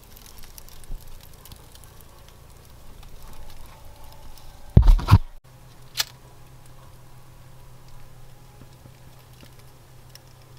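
Small paper-and-kindling fire in a fireplace crackling faintly. There is a loud knock about five seconds in, a sharp click a second later, and then a low steady hum.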